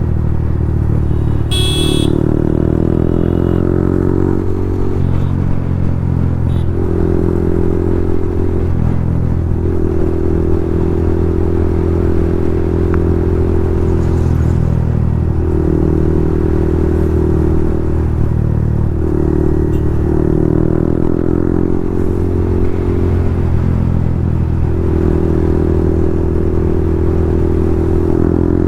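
Yamaha MT-15's 155 cc single-cylinder engine, breathing through a loud Akrapovic full-system exhaust, running under way. Its pitch rises several times, as with throttle pulls through the gears, between steady cruising stretches. There is a short high beep about two seconds in.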